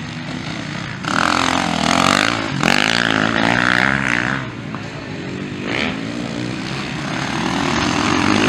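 Motocross dirt bike engines revving as riders accelerate through the corners, the pitch rising and falling with the throttle. They are loudest from about a second in until past the middle, with another quick rev near the end.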